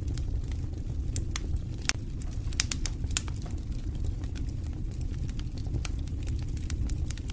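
Wood fire burning in a stone fireplace: a steady low rumble of flames with irregular sharp crackles and pops, a few louder ones about three seconds in.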